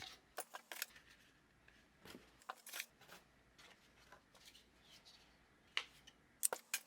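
Faint, scattered light clicks, taps and short rustles of a pressure washer's packaging and small parts being handled as it is unboxed, with a few sharper clicks near the end.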